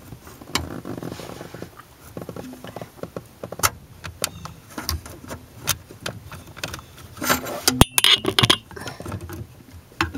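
Scattered plastic clicks, knocks and rustling as a Saturn S-series chime module and its wiring harness are worked loose from the mounting by hand. The sounds are busiest about seven to eight and a half seconds in.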